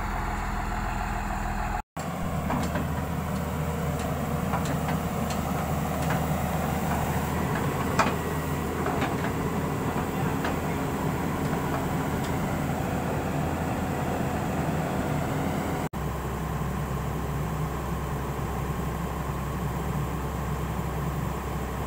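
Heavy diesel engines of a motor grader and an excavator running steadily, with scattered light knocks and one sharper knock about eight seconds in.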